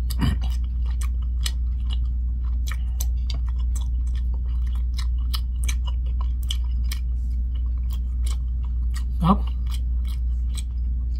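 A person chewing a mouthful of chewy Korean rice cake in spicy tteokbokki sauce, giving many irregular wet mouth clicks, several a second, over a steady low hum. There is a short voiced hum just after the start and another about nine seconds in.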